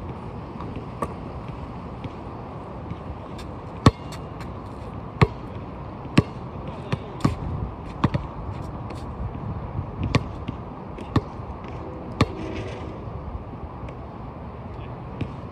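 A basketball bouncing: single sharp bounces at irregular intervals, mostly about a second apart from about four seconds in, over a steady low background noise.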